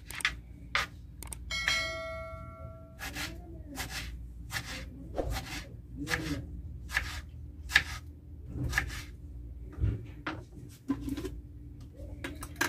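Kitchen knife slicing tomatoes on a plastic cutting board, a sharp tap each time the blade meets the board, about one or two a second. A short bell-like chime rings out about a second and a half in.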